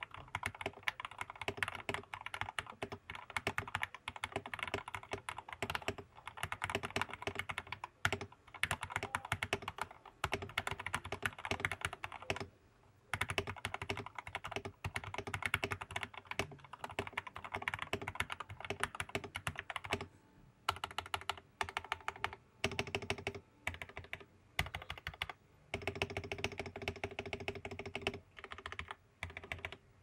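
Typing on a Tom680 mechanical keyboard with lubed Gateron Black linear switches, lubed stock stabilizers, an acrylic plate, tape and foam mods, and dye-sub PBT Cherry-profile 2048 keycaps: a steady stream of keystrokes with a few brief pauses.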